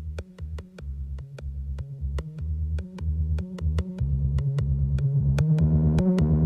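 Electronic synthesizer music with pulsing bass notes under a steady ticking beat, building in loudness.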